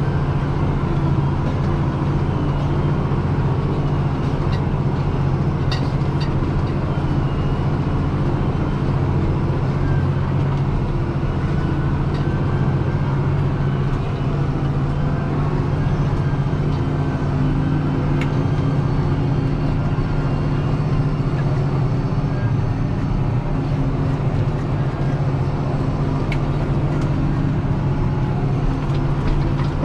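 Deutz-Fahr 6185 TTV tractor's six-cylinder diesel engine running steadily, heard from inside the cab as a constant low drone.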